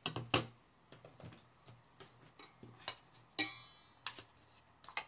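A spatula knocking and tapping against mixing bowls in scattered single taps while butter is scraped into a stainless steel bowl of flour. One knock, about three and a half seconds in, leaves the steel bowl ringing briefly.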